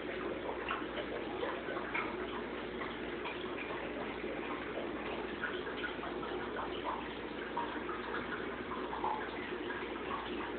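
Aquarium water bubbling and trickling steadily, with many small irregular pops.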